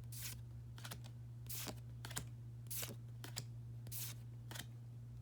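Pokémon trading cards slid one at a time from the front of the stack to the back, a short papery swish with each card, about eight in a row. A steady low hum runs underneath.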